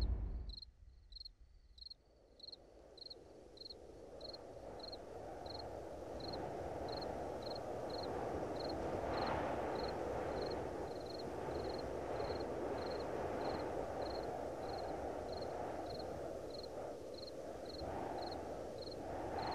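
A cricket chirping at a steady pace, short high chirps of one pitch about every half second, over a low rushing noise that swells in after a few seconds. A deep rumble fades out at the very start.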